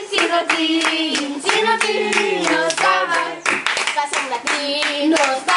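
A small group singing a birthday song together, clapping along in a steady rhythm.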